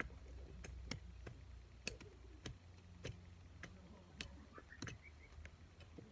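Faint, irregular clicks and taps, roughly one every half second, from hand tools digging into garden soil and working out roots, over a low steady rumble.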